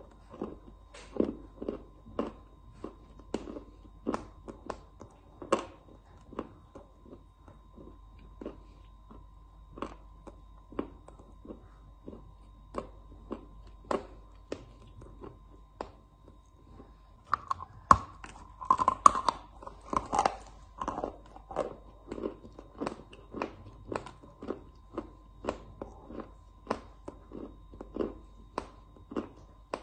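Chewing and biting lumps of dry white chalk: a steady run of crisp crunches, about two a second, with a louder, busier stretch of crunching a little past the middle. A faint steady high hum runs underneath.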